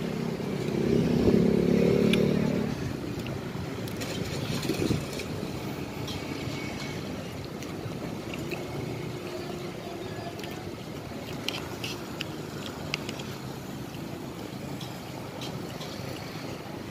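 Steady street background noise, with a motor vehicle passing, loudest between about one and three seconds in. Scattered light clicks of a metal spoon and fork against a plastic plate as the salad is stirred.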